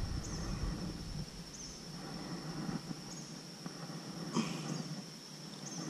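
Faint sloshing of lake water around a hand holding a largemouth bass alongside a kayak while the fish is being revived, with one soft knock about four and a half seconds in. A thin, steady high tone runs underneath.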